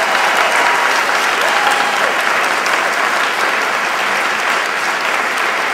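Crowd applauding steadily, the clapping slowly dying down.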